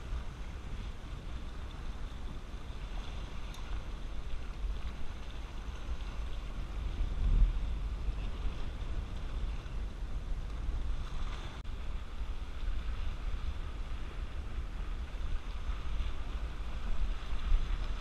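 Wind buffeting the microphone over small waves washing across rocks, a steady low rumble with one louder bump about seven seconds in.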